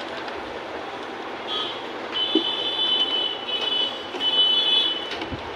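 Epson L3210 inkjet printer's mechanism making a high-pitched whine in several stretches of about a second each, with short breaks between them, over a steady background hiss. This is the abnormal printer noise that goes with error 0000043.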